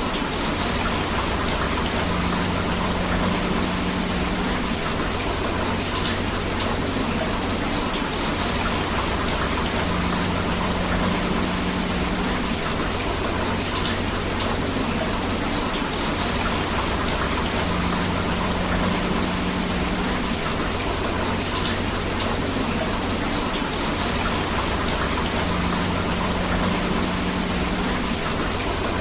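Steady rain falling together with a rushing river, an even, unbroken wash of water noise. A faint low hum comes and goes about every eight seconds.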